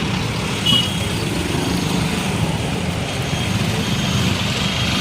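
Busy road traffic with vehicle engines running in a steady din. Short high beeps cut through it, once early on and then repeating about twice a second in the second half, like a reversing beeper.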